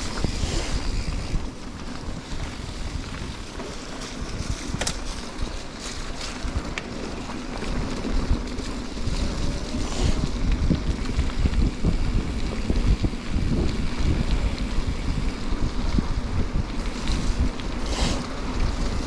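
Wind buffeting the microphone of a mountain bike being ridden on a forest trail, with steady rumble from the bike and tyres. A few sharp clicks and knocks come from the bike over the trail, about five, ten and eighteen seconds in.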